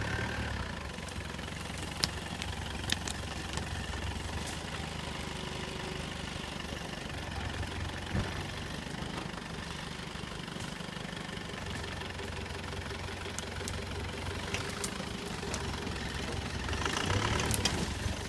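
A vehicle's engine running steadily at low revs while the vehicle is slowly manoeuvred out from among trees. It gets louder near the end, and a few sharp clicks sound over it.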